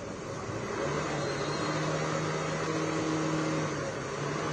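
An engine running steadily: a low, even hum comes in about a second in, over a constant hiss.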